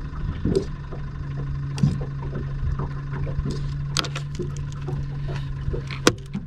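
A steady low hum from a small boat's motor, with scattered light clicks and knocks as a small speckled trout is unhooked and handled by hand. There is a single sharp click near the end.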